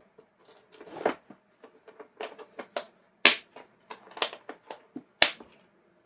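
Hard plastic power-tool carry case being shut and latched: a sharp knock as the lid comes down, then a string of small plastic clicks and rattles with two loud snaps, about three and five seconds in.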